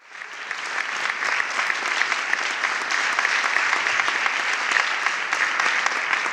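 Audience applauding, swelling in over the first second and then holding steady.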